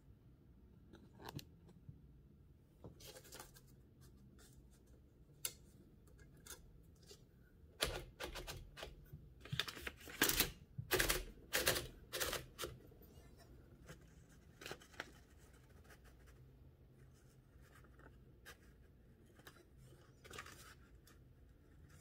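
Paper being wound into an Empire No. 2 typewriter by its platen knob, with scattered clicks, scrapes and paper rustling that are busiest about eight to twelve seconds in.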